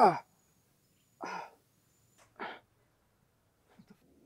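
A man's short sigh that falls in pitch, then two quieter short breaths about a second apart.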